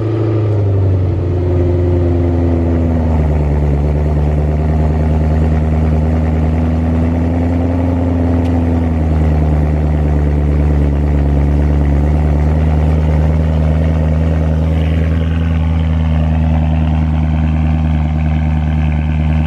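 BMW E92 M3's S65 V8 idling through its stock exhaust just after a cold start. The engine note drops over the first three seconds or so as the start flare settles, then holds a steady cold idle.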